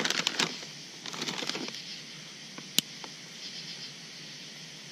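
Plastic glow-stick packaging crinkling, then one sharp snap about three seconds in: a glow stick being bent to crack its inner vial and set it glowing.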